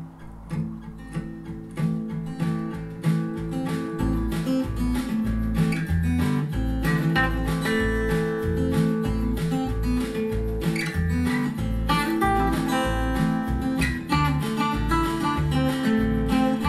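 Folk music led by strummed acoustic guitar, played through a pair of Sharp CP-C411H bass-reflex bookshelf speakers and picked up by a microphone in the room. It opens sparsely, and a steady bass line comes in about four seconds in.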